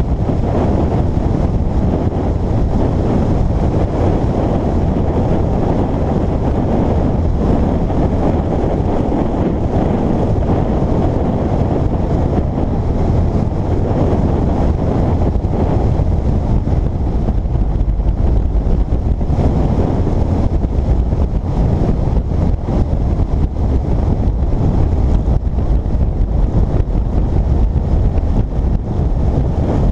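Steady, loud wind rush on the microphone of a Yamaha FJR1300 sport-touring motorcycle riding at road speed, with the bike's running noise underneath.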